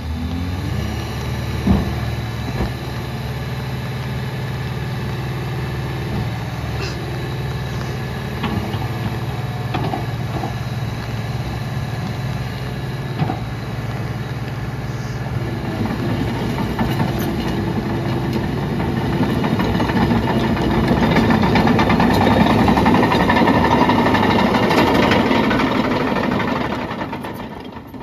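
John Deere 850K crawler dozer's diesel engine running steadily as the machine drives and turns on gravel, with the steel tracks clanking and crunching over the stone. The engine grows louder and busier through the second half, then the sound cuts off at the end.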